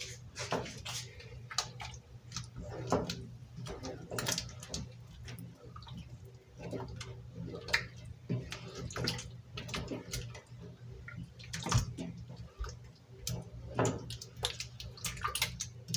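Wet peanut-butter stew sloshing in a cooking pot as it is stirred, with irregular clinks and splashes every second or so.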